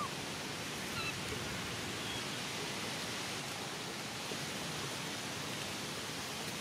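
Steady outdoor background hiss, with a few faint, brief high chirps in the first two seconds.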